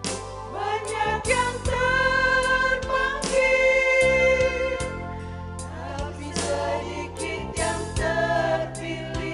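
Church vocal group singing a gospel song with instrumental accompaniment; the voices come in right at the start over the steady accompaniment.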